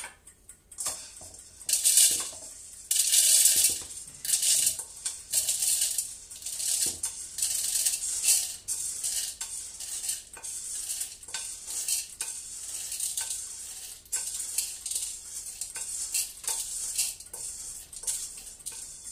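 Roasted coffee beans rattling as they are tipped and shaken out of a frying pan into a coffee grinder's hopper, in uneven bursts of pouring.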